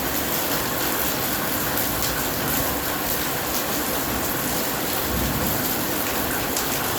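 Steady rain falling, a dense even hiss with scattered ticks of individual drops.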